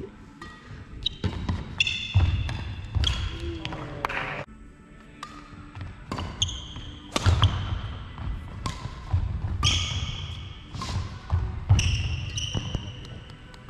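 Badminton rally on a wooden sports-hall court: athletic shoes squeal several times on the floor, with sharp racket strikes on the shuttlecock and thudding footfalls in between.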